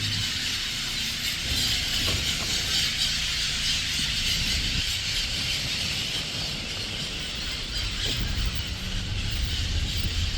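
Steady, high-pitched chorus of insects, a continuous shrill hiss, over a low rumble.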